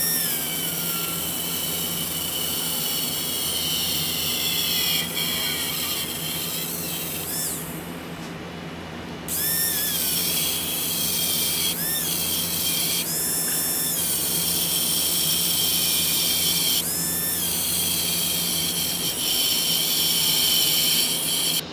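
A high-pitched electric power tool, such as a grinder, whining steadily on metal, its pitch bending briefly several times as it is loaded. It stops for about a second just past the middle, then spins up again.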